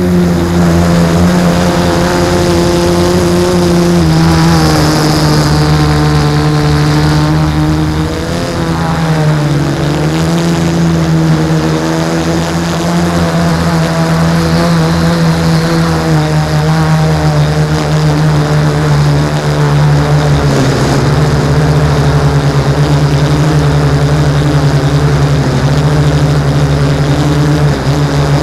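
Six LD-Power MT3110 780 KV brushless motors spinning 10x4.5 propellers on an F550 hexacopter in flight, heard from the camera on the airframe. They make a loud, steady buzz whose pitch wavers briefly about eight to ten seconds in and again around twenty seconds as the throttle changes.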